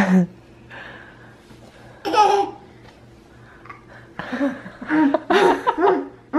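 A baby laughing and babbling in short bursts: a brief laugh at the start, another about two seconds in, and a longer run of laughs in the last two seconds.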